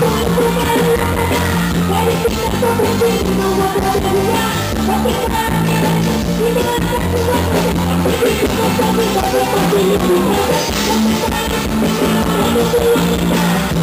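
Live forró band playing loud, with a steady repeating bass line.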